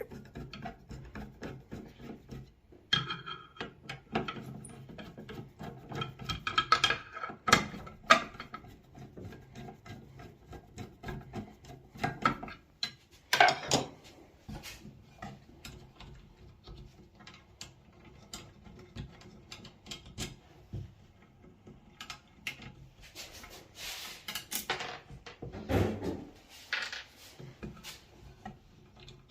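Irregular clicks, scrapes and knocks of hands and tools dismantling a Baxi combi boiler's internals, with a few louder clatters along the way.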